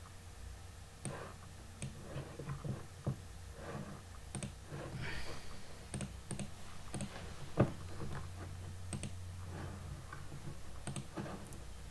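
Irregular clicking of a computer mouse and keyboard, with one sharper click about seven and a half seconds in. A steady low hum runs underneath.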